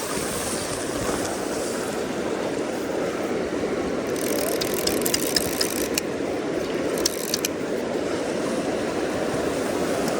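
River water rushing steadily around a drifting boat, with a scatter of light, sharp clicks in the middle stretch.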